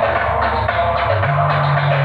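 A song with drums playing loudly over a loudspeaker sound system. A held bass note steps up in pitch about a second in.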